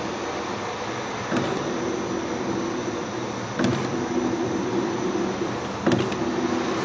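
Automatic stainless-steel momo (baozi) forming machine running with a steady mechanical hum, broken by three sharp knocks about two seconds apart.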